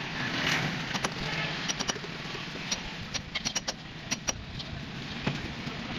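Irregular light metallic clicks and clinks, as of metal tools and hub parts being handled, over a steady low hum.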